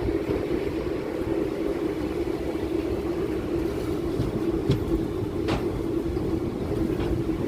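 Chennai MRTS electric suburban train running along the track: a steady rumble with a constant low hum, and a couple of sharp clicks a little past halfway.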